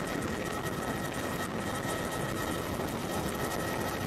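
Helicopter in flight: steady engine and rotor noise, with two steady high whining tones over it.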